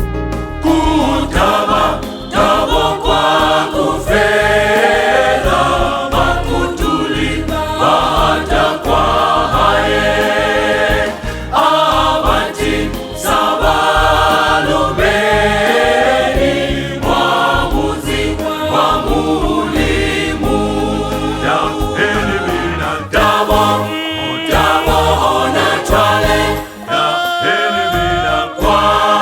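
Choir singing a gospel song over instrumental backing with a steady low bass, the voices pausing briefly every few seconds between phrases.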